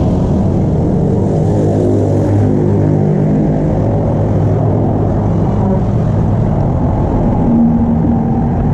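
A motor engine running steadily with a low drone.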